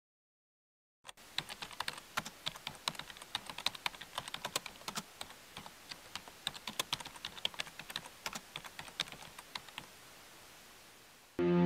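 Quick, irregular keyboard typing clicks, a typing sound effect, starting about a second in and stopping shortly before music comes in near the end.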